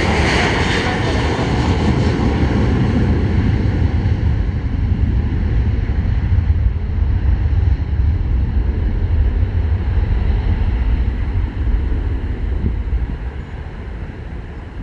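Airliner engines rumbling loudly as the aircraft passes, the high whine fading over the first few seconds and the rumble dying away near the end.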